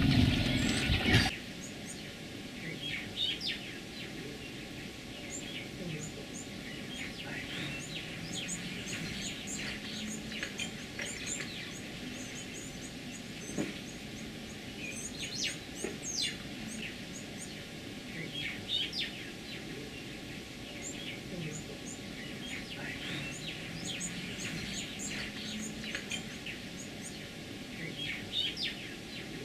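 Small birds chirping and twittering, many short high calls scattered throughout over a faint steady hum. A louder sound cuts off abruptly about a second in.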